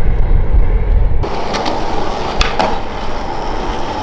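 A low rumble for about a second, then an abrupt change to skateboard wheels rolling on concrete, with a few sharp clacks from the board.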